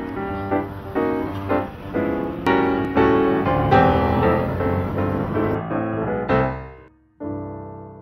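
Piano music: a run of struck notes, ending about seven seconds in with a final chord that rings and fades away.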